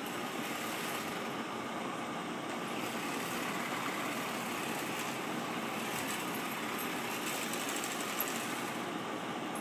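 Lawn mower engine running steadily.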